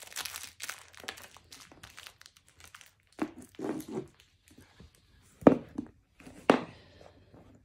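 Fine crinkling and rustling as an English bull terrier puppy mouths and paws at a plush toy, followed by a few short, sharp louder sounds in the second half.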